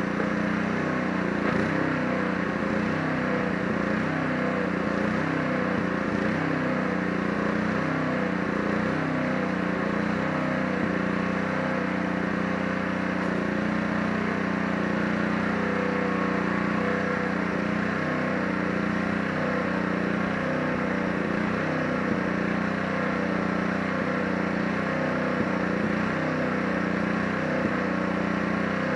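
Gas pressure washer's small engine running steadily under load, with the hiss of the water jet on the deck boards.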